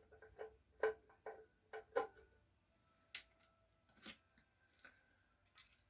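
Sharp small metallic clicks and taps, about six spread over the first four seconds, some with a short ring: screws and metal parts of a bench grinder being handled as screws are taken out with a Phillips screwdriver.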